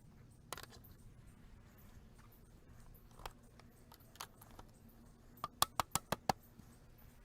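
Garden-bed stacking stakes being hammered into the ground: scattered light knocks, then a quick run of about six sharp taps near the end.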